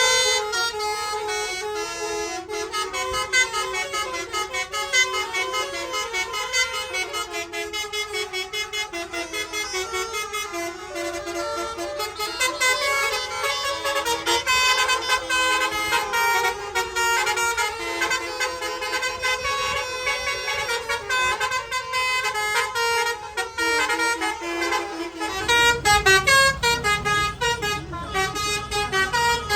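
Indonesian bus 'telolet' multi-tone air horns playing a fast melody, the pitch stepping up and down several times a second. A low rumble joins about 25 seconds in.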